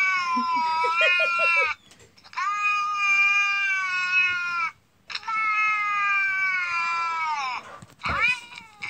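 Recorded cat meowing played through a tablet's speaker: long, drawn-out yowls of about two and a half seconds each, following one another with short pauses. Some of them fall in pitch as they end.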